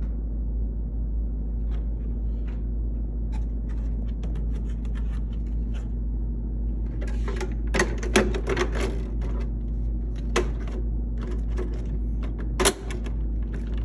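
Hard plastic body of a Traxxas TRX-4 '72 K5 Blazer being handled and set onto the chassis's clipless latching body mounts: scattered light plastic clicks and clacks, busiest in the middle, with one sharper click near the end. A steady low hum lies underneath.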